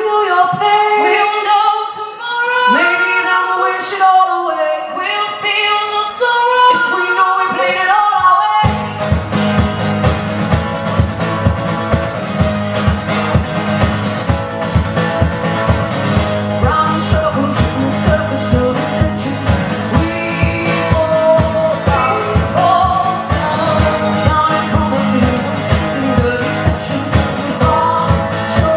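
Live folk-pop song sung by a female vocal duo: the voices sing alone in harmony at first, then about nine seconds in the accompaniment comes in with a steady beat and the singing continues over it.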